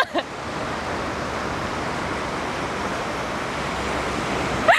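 Steady outdoor background noise, an even hiss with no voice in it, after a brief click at the start.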